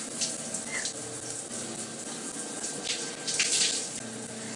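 Shower running: a steady hiss of water spray in a tiled shower stall, swelling briefly a few times as the spray splashes.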